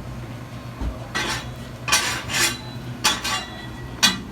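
Dishes and metal utensils clattering in a run of sharp clinks and knocks, over a steady low hum.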